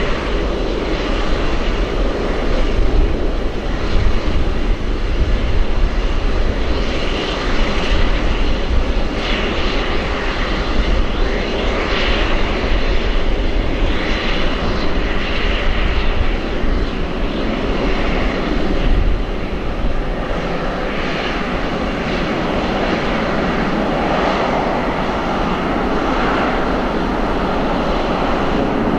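Jet airliner's turbofan engines running loudly, most likely a JAL Airbus A350-900's Rolls-Royce Trent XWBs: a continuous deep rumble under a rushing hiss that swells and fades in waves.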